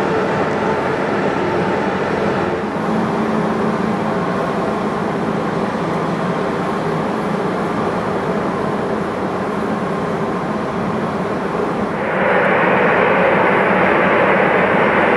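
Steady jet turbine noise of aircraft on the apron, a continuous rush with held whining tones, stepping up louder about twelve seconds in.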